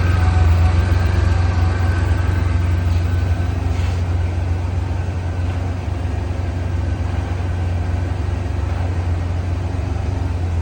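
Pontiac Fiero engine idling steadily, a low, even hum.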